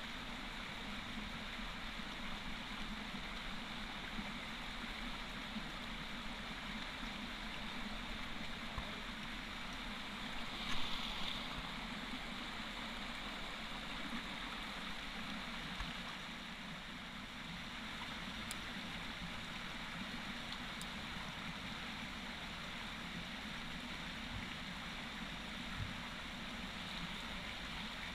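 Creek water running steadily over stones in a shallow riffle, a continuous rushing with a little gurgle. A short louder burst about eleven seconds in stands out briefly above it.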